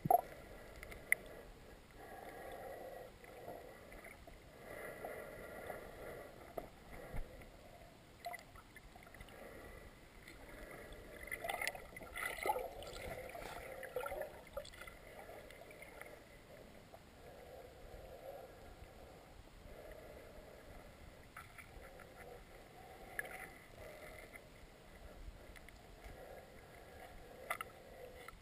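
Muffled river water gurgling and moving, heard through a submerged camera's housing, with a few sharp knocks and a louder stretch in the middle.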